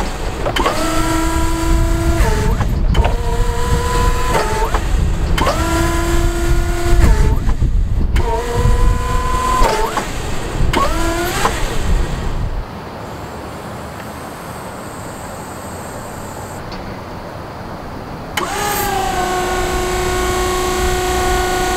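An electric forklift's hydraulic pump motor whines in short spells of one to two seconds as the carton clamp's hydraulic controls are worked. Each whine starts and stops with a quick slide in pitch. After a quieter stretch of several seconds, one long steady whine begins near the end as the clamp is raised on the mast.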